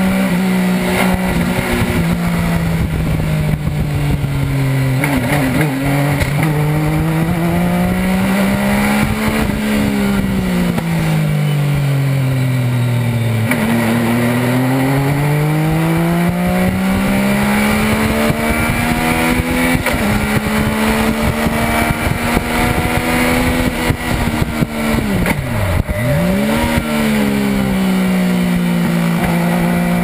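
Legend car's Yamaha motorcycle engine heard from inside the open cockpit, running hard on track, its pitch climbing and falling in long sweeps as the throttle is opened and closed through the corners. Late on the revs drop sharply for a moment and pick up again.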